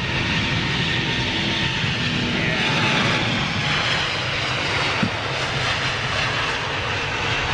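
Jet airliner's engines at high power as it passes, a steady rushing roar that swells to its loudest about three seconds in.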